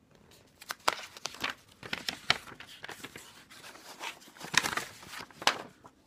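A paper envelope being opened by hand: irregular crinkling and tearing of paper in quick sharp rustles, starting about half a second in and stopping just before the end.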